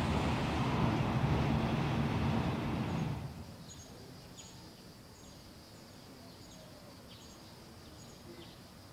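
Car driving on a highway, a steady rumble of engine and road noise, cuts off about three seconds in. What remains is faint background with a bird chirping briefly about twice a second.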